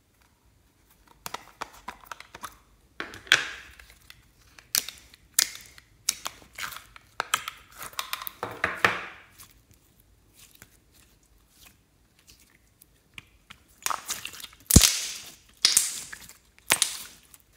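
Sticky green slime being peeled out of a plastic tub and squeezed by hand, making bursts of crackling, squelching and sharp little pops. Near the end comes one loud sharp snap, likely an air pocket bursting in the slime.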